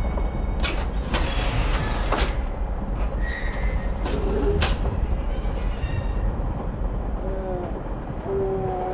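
Commuter train carriage rumbling steadily, with several sharp bursts of clatter in the first five seconds as a carriage door is opened. A few short gliding squeaks come near the end.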